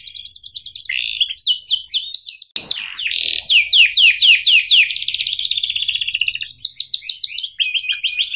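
Domestic canary singing a fast roll of rapidly repeated, downward-sweeping chirps, broken by a short pause about two and a half seconds in.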